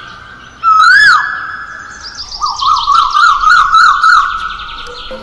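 A loud, high-pitched warbling tone like a siren: one swoop up and down about a second in, then a quick run of about six wavering swoops.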